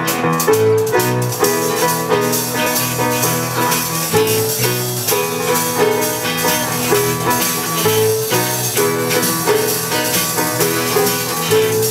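Instrumental music: keyboard chords and a bass line, with a shaker or tambourine keeping a steady beat, no voices yet.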